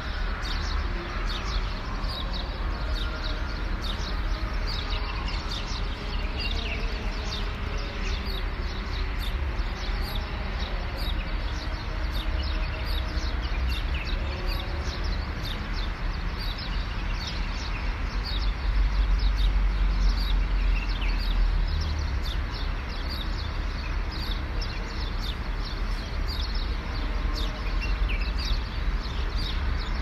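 Many small birds chirping in a dawn chorus, with short quick chirps crowding over one another. Beneath them runs a steady low rumble that swells for a few seconds about two-thirds of the way in.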